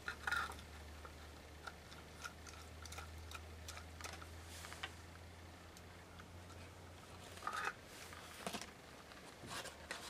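Faint clicks and rustles of a small plastic project box with switches and wires being handled, as pre-soldered wires are tried against the switch terminals. A low steady hum runs underneath and stops about seven seconds in.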